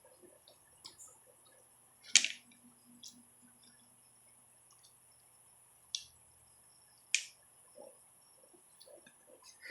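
Eating sounds: quiet chewing with a few sharp mouth clicks or smacks, the loudest about two seconds in and two more near the middle.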